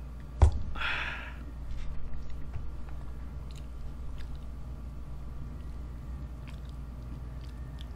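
A plastic cup set down on the table with one sharp knock about half a second in, then a short breathy rush, followed by quiet chewing of fried chicken and soft handling of the cheese-covered chicken leg.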